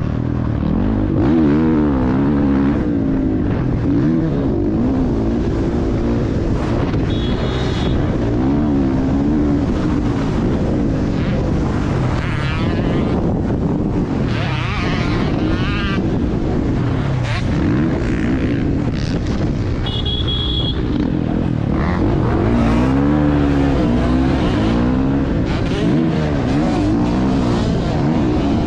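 Dirt bike engine running hard through a motocross race, its pitch rising and falling constantly as the throttle opens and closes. Two short, high-pitched horn honks cut through, one about seven seconds in and one about twenty seconds in.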